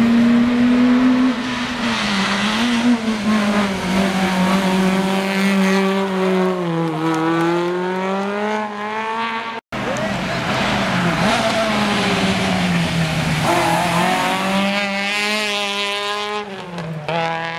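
Rally car engines running hard, one car after another with a cut between them about ten seconds in. Each engine note drops as the car slows and rises again as it accelerates and changes gear.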